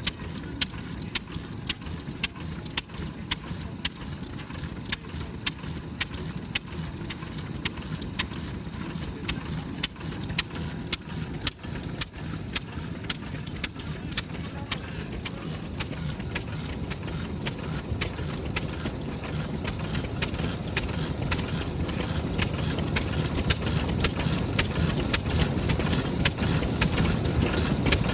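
Large Kubota FF-type 10 hp single-cylinder stationary engine running, its sharp exhaust beats about two a second at first, then gradually quickening and getting louder. It fires steadily with no misfires, now that its spark plug has been replaced.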